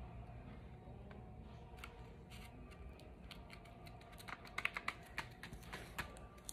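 Faint rustling and small clicks of fingers handling paper and plastic as a sticky foam snowflake is pressed onto a paper shaker card. A quick run of clicks and taps comes from about four seconds in.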